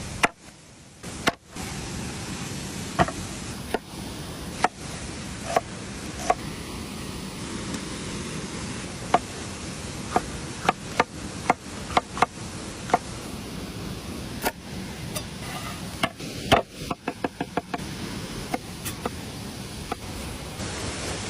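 Knife chopping on a cutting board: single sharp chops about a second apart, then a quick run of chops about two thirds of the way in, over a steady rushing background.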